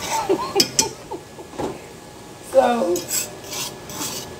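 A utensil scraping and stirring against the bottom of a skillet of sautéing chicken, mushrooms, peppers and onions, in a few short strokes.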